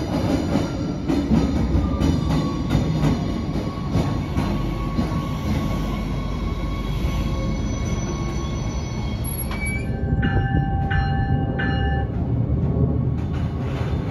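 Stadler GTW diesel light-rail car approaching and passing close on street track: low diesel and wheel rumble with thin, steady high-pitched wheel squeal. Between about ten and twelve seconds in, a short run of tones repeats about twice a second.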